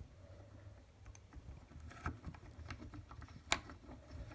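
Scattered light clicks and taps of toilet seat mounting hardware being handled as a nut is started by hand on a bolt under the bowl, with one sharper click about three and a half seconds in.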